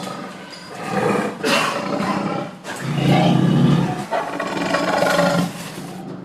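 Angry tiger roaring, several loud roars in quick succession with the loudest about three seconds in.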